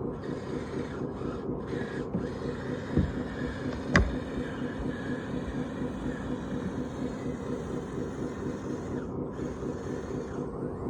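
Motors and hydraulics of radio-controlled model construction machines running steadily with an even pulsing, with two sharp knocks about three and four seconds in.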